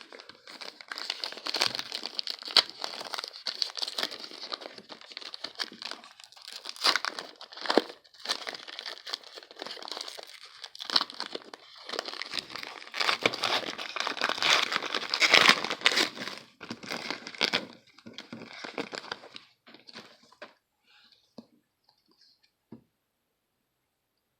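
Foil wrapper of a baseball card pack being torn and crumpled: a continuous crackly crinkling that stops about twenty seconds in, followed by a few faint clicks.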